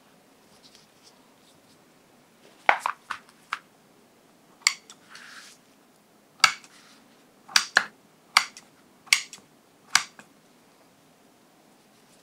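Kitchen knife cutting string cheese and slitting a flour tortilla on a wooden cutting board. The blade strikes the board with about eleven sharp clicks, irregularly spaced, with a brief rustle in the middle.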